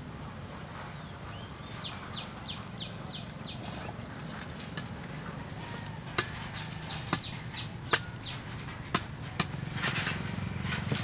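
Footsteps on dry ground with a few sharp snaps and clicks about once a second, and an armful of dry twigs rustling as it is set down near the end. A bird calls a quick series of short falling chirps, twice.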